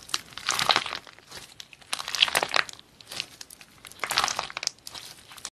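Clear slime packed with red beads squeezed and pressed between fingers, in three bursts of sound about two seconds apart. The sound stops suddenly near the end.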